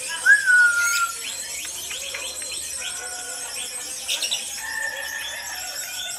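Female lovebird singing: it opens with a loud, held whistled note that falls slightly, runs into a stream of rapid chirps, and holds a second long note about five seconds in. This is the 'dobelan' (double-note) song that lovebird keepers listen for.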